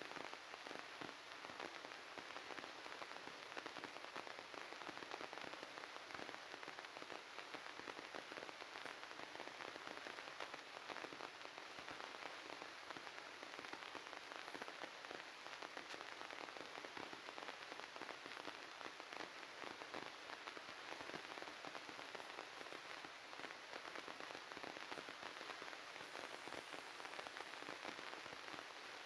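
Faint, steady crackling hiss of glitched audio: an unbroken static-like noise with fine crackle, no tone or rhythm.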